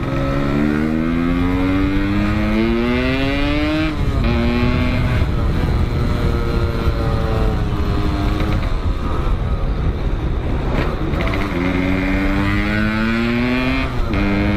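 Suzuki Shogun motorcycle engine with an aftermarket 'packing power' exhaust, accelerating hard: the pitch climbs and drops suddenly at a gear change about four seconds in, then climbs again and drops at another shift near the end. Low wind rumble on the microphone runs underneath.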